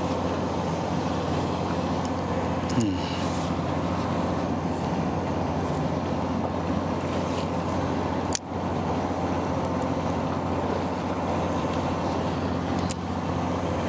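A fishing boat's machinery running with a steady low drone, an even hum that holds unchanged throughout.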